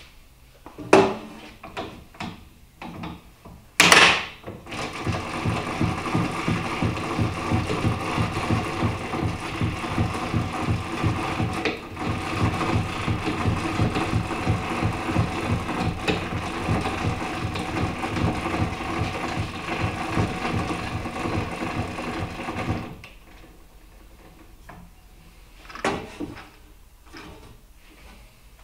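Height-adjustment crank of a Metabo DH330 thickness planer being turned: a steady run of rapid mechanical clicking from the crank and column mechanism for about eighteen seconds, stopping abruptly. A few knocks come first, the loudest about four seconds in.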